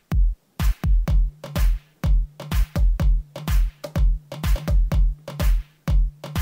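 Electronic background music with a programmed drum-machine beat: regular kick-drum and hi-hat strokes, joined by a steady bass line about a second in.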